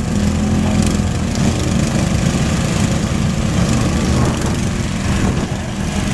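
Two racing lawn tractors' small engines running loud, then pulling away as the tractors launch off the start line and drive off across the grass.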